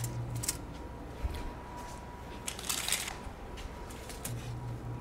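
Hands shaping cookie dough coated in shredded coconut: faint soft rustles and light taps, a little louder for a moment just past the middle.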